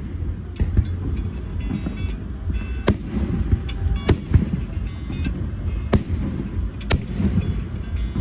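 Aerial fireworks bursting: sharp bangs about every one to two seconds over a continuous low booming rumble, with crackling from the shells.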